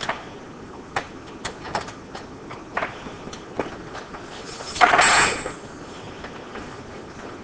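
Small metal clicks and taps from hands and a spanner working on a bicycle's front brake cable and band fastener, several over the first few seconds, then a louder rasping noise lasting about half a second a little before five seconds in.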